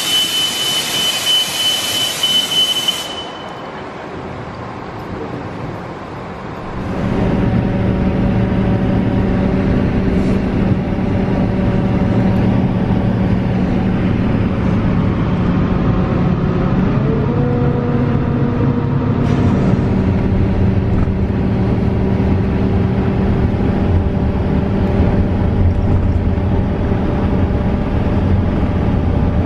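Airport shuttle bus: a loud hiss of air with a steady high beep for the first few seconds, typical of the bus's pneumatic doors, then from about seven seconds the bus's engine running steadily as it drives, heard from inside, its note rising once partway through.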